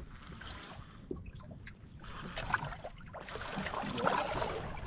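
Water sloshing and lapping against a boat's hull: a faint, irregular splashing that grows louder toward the end.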